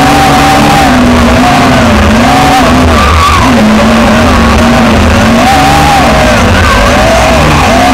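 Tarantula X6 drone's motors and propellers whining in flight, heard loud and close from a camera mounted on the drone. The pitch rises and falls continually as the throttle changes.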